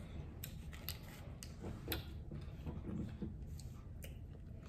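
A person eating a taco close to the microphone: faint chewing with scattered, irregular small clicks and crunches as she bites.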